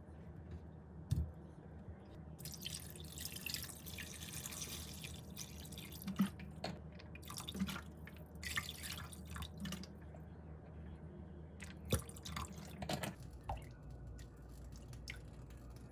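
Water dripping and trickling in a kitchen sink, with scattered small clicks and clinks.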